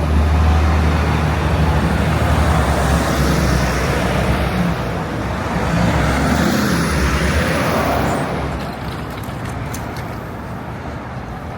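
Heavy road vehicle, a bus or truck, running close by with a loud low engine rumble that fades away about eight seconds in, over city traffic noise. A thin high squeal, like a brake, rises and holds for about a second and a half around six seconds in.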